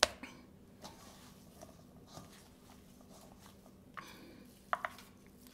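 Quiet sounds of hamburger patties being shaped by hand from a stainless steel bowl: a sharp click at the start, a few faint ticks, then two short taps near the end, over a faint steady hum.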